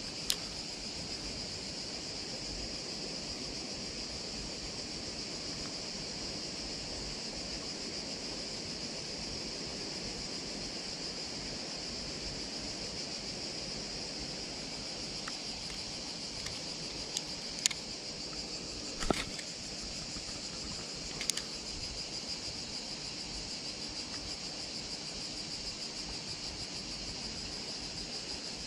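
Steady high-pitched droning of summer insects, with a few sharp clicks from handling the spinning reel: one just after the start and three close together about two-thirds of the way through.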